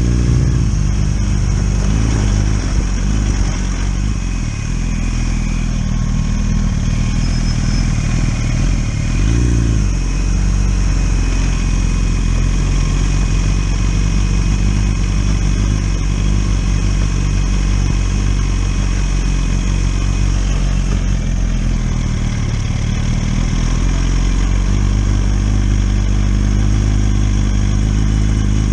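Inline-four engine of a 1000cc sport motorcycle running steadily, with a brief rev that rises and falls about nine seconds in.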